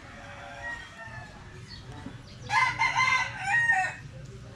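A rooster crowing once, about two and a half seconds in: a single loud crow lasting about a second and a half.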